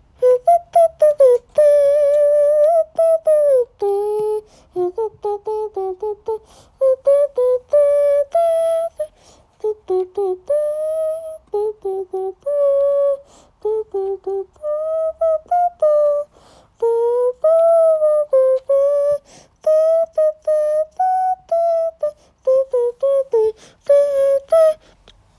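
A young child's high voice singing a tune in short notes without clear words.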